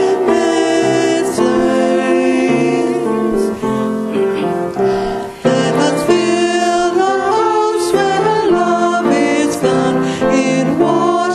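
Hymn sung with piano accompaniment. The refrain ends, there is a brief dip about five seconds in, and the next verse begins.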